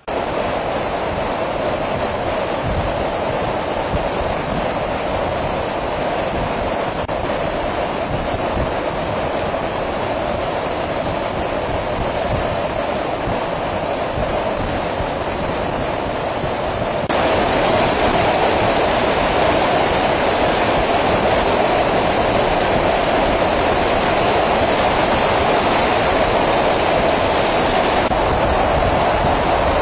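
Steady rushing noise of engines and airflow, heard from an aircraft in flight alongside EA-6B Prowler jets. It gets louder about seventeen seconds in.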